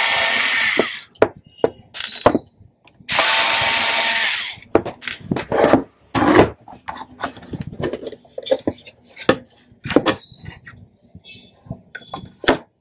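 Cordless drill-driver backing screws out of a subwoofer's metal amplifier plate, running twice for about a second and a half each, followed by scattered knocks and clicks as the loosened plate and screws are handled.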